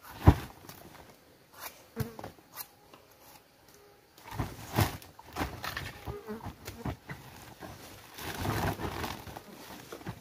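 Fresh bamboo shoots being dropped and packed into a woven plastic sack, with irregular knocks and rustling; the loudest knock comes just after the start. An insect buzzes close by.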